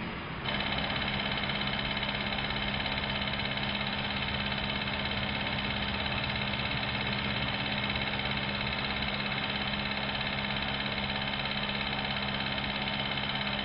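Steady drone of a small water pump and a falling water jet running continuously, with a few constant hum tones. It starts suddenly about half a second in.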